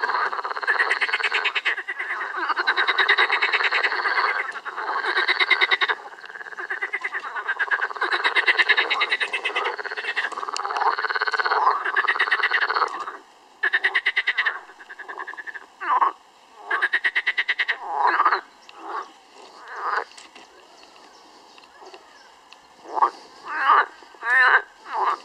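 A chorus of European green frogs (water frogs) croaking: rapid rattling calls, some of them cackling like laughter. For about the first half the calls overlap in a dense chorus, then they break into separate calls with short pauses between them, picking up again near the end.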